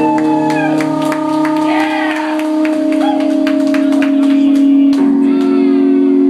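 Live band playing a sustained droning passage on electric guitars and keyboard: steady held notes that shift pitch about three seconds in and again about five seconds in, with gliding higher tones and scattered sharp clicks over them.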